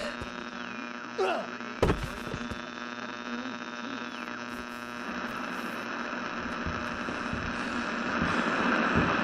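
A steady electrical-sounding hum with a high thin tone that slides down in pitch twice, a couple of soft clicks early on, and a hiss that swells louder over the last few seconds.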